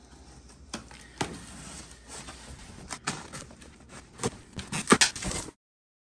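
Knife slitting the packing tape on a cardboard box, with scattered sharp ticks, scrapes and rustling of the cardboard flaps. The sound stops abruptly near the end.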